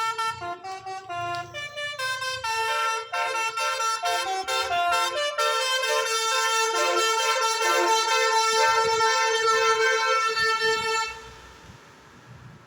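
Basuri musical multi-tone bus horn playing a tune: a quick run of short stepped notes for about five seconds, then a long held chord that cuts off about eleven seconds in.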